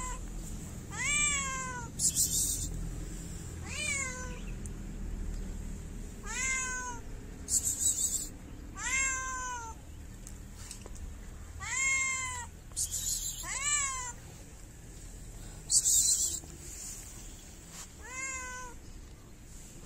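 A cat meowing for food: about seven meows, two to three seconds apart, each rising and then falling in pitch. A few short, sharp hissing sounds come between them, the loudest about three-quarters of the way through.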